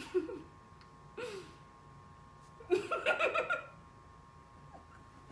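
Short bursts of quiet laughter: two brief falling vocal sounds near the start and about a second in, then a choppy fit of giggling for about a second near the middle.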